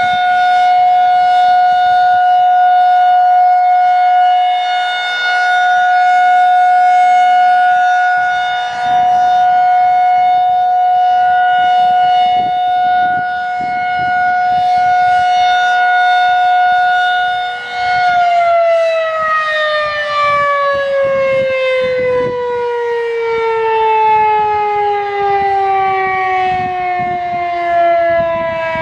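Federal Signal 2001-SRN rotating outdoor warning siren sounding its full-alert steady tone, one loud held pitch that swells and fades slowly. About two-thirds of the way through, the signal ends and the siren winds down, its pitch falling steadily.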